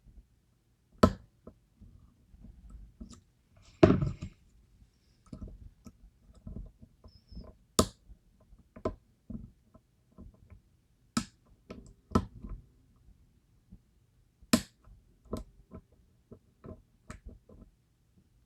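Steel lock picks clicking and tapping against the pins inside a DOM IX Twinstar lock during picking: irregular sharp ticks, with a few louder clicks scattered through.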